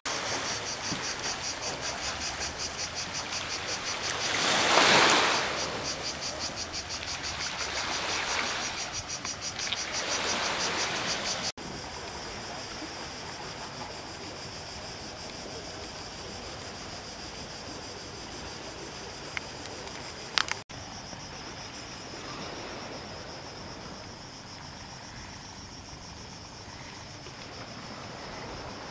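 Cicadas chirring in a fast, even pulse over small waves washing onto a pebble beach; the loudest wash comes about five seconds in. Later the cicadas run as a steady, unbroken drone.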